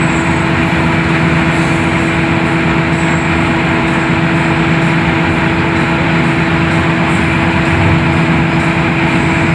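Cabin noise of a Hino AK8 coach cruising at steady speed: the diesel engine drones at a constant pitch under the rush of tyres and road.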